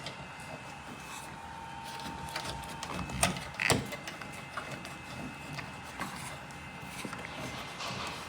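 Hand-handling noise of loose wires being worked through a rubber grommet: irregular rubbing and rustling with small clicks, and two louder sharp clicks a little past three seconds in.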